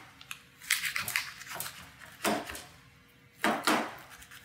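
Large kitchen knife cutting through a baked lasagna in a disposable aluminium foil pan: about four short scraping strokes, roughly a second apart, as the blade saws through the browned crust and scrapes against the foil.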